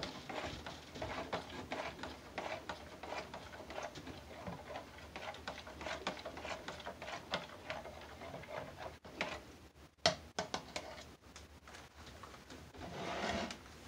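A stirrer ticking rapidly against the side of a plastic beaker as a cloudy lye solution is mixed by hand. The stirring stops about nine seconds in and is followed by a few knocks, the sharpest about ten seconds in, as the beaker is let go on the table.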